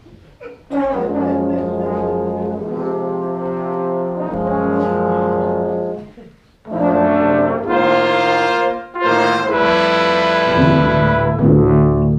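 Brass and saxophone ensemble (trombones, trumpets, tubas and saxophones) playing held chords live. The music breaks off briefly about six seconds in, comes back louder and brighter, and shifts to shorter, separate low notes near the end.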